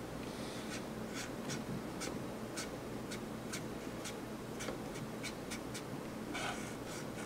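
Fingers working at close range over a plastic model wing, cleaning off a spot of paint: a string of small, light clicks, about two a second, over soft rubbing, with a short hiss about six seconds in.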